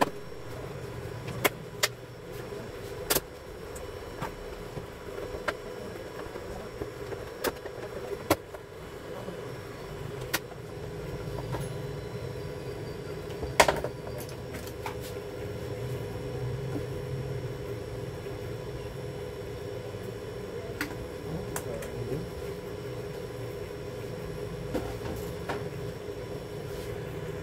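Plastic back cover of an LCD monitor being pried off by hand: scattered sharp clicks and snaps from the casing and its clips, the loudest about halfway through, over a steady background hum.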